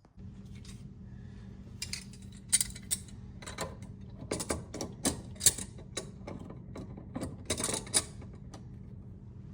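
Metal tools clicking and scraping on the parts of an old Delta faucet being taken apart for repair: a dozen or so sharp clicks and short scrapes over a steady low hum that starts just at the beginning.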